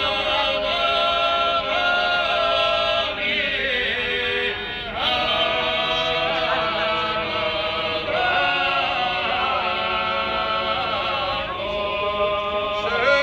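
A group of men singing a multi-part song without accompaniment, holding long chords. The singing breaks between phrases about four, eight and eleven seconds in.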